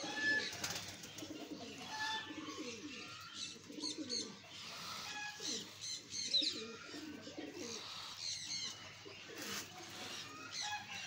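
Flock of domestic pigeons cooing over and over in a wire-mesh loft, with short high chirps mixed in.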